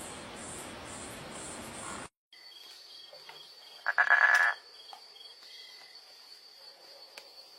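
Night-time insects chirping, with regular high pulses and then a steady high trill after an abrupt cut about two seconds in. A single loud, short frog call comes about four seconds in.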